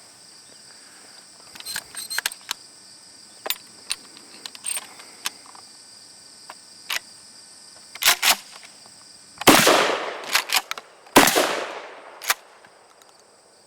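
Two blasts from a Maverick bullpup 12-gauge pump shotgun, about a second and a half apart, each trailing off in an echo. Sharp clicks and clacks of the gun being handled come before and between the shots.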